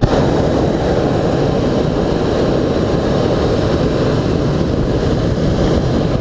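Hot air balloon's propane burner firing: a loud, steady rushing noise that starts abruptly and holds without a break.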